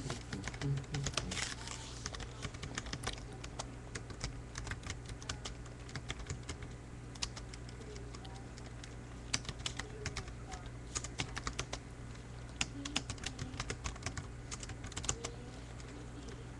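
Typing on a computer keyboard: irregular runs of key clicks with short pauses between words.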